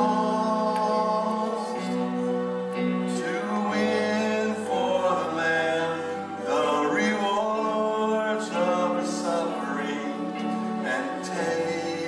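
Worship song: singing over sustained chords whose bass note changes every few seconds.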